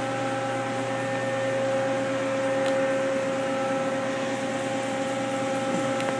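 Steady machine hum holding several fixed tones, from a powered-up CNC lathe standing idle, with a couple of faint ticks.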